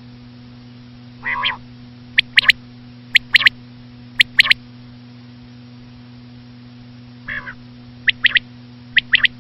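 Common quail calling: short, sharp high notes in quick groups of two or three, repeated every second or so, with a lower, rasping call about a second in and another near seven seconds. A steady low hum runs underneath.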